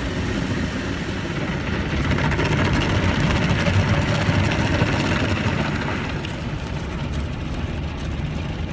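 Automatic car wash heard from inside the car: water spraying and cloth brushes sweeping over the windows and body in a steady rushing din, easing slightly after about six seconds.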